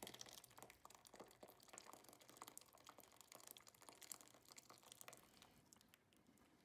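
Faint wet ticks and soft glugs of thick yogurt-and-egg sauce being poured from a saucepan into a metal baking pan, fading out about five and a half seconds in.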